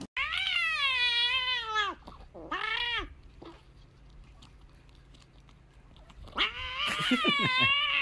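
Domestic cat meowing: a long, wavering yowl, a short meow, then after a pause another long wavering yowl, as it begs for a squeeze-tube cat treat.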